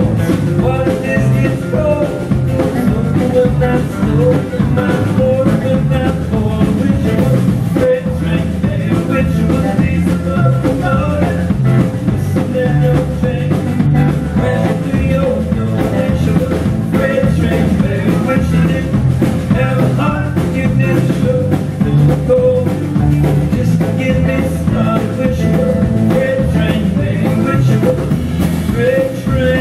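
Live country-rock band playing at a steady beat: Telecaster-style electric guitar, acoustic guitar, electric bass and drum kit.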